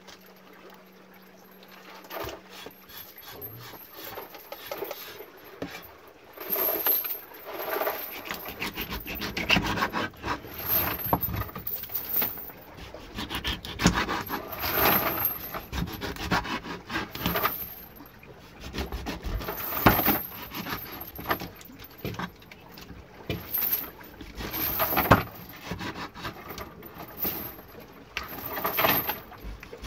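Large kitchen knife cutting and scraping through catfish on a wet wooden cutting board: irregular knocks and rasping scrapes of the blade on the wood, starting about two seconds in. The user calls the knife very dull.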